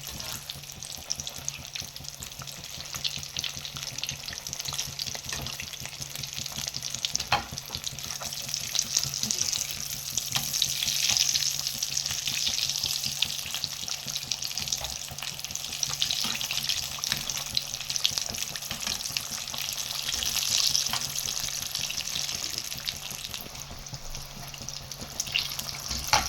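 Samosas deep-frying in hot ghee: a dense sizzle and crackle that swells louder twice, over a steady low hum.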